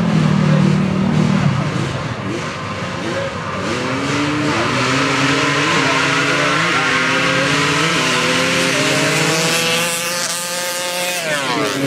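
ATV engines in a sand drag race: a steady high-revving note at the line, then launching and accelerating hard, the pitch climbing and dropping back at each of several gear shifts. The pitch falls sharply near the end.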